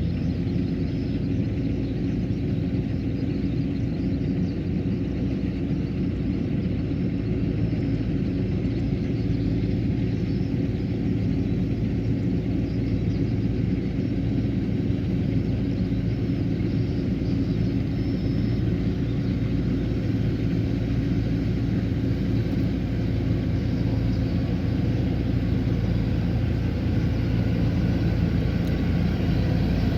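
Kubota combine harvester's diesel engine running steadily under working load, an even drone with a fixed engine note that holds unchanged throughout.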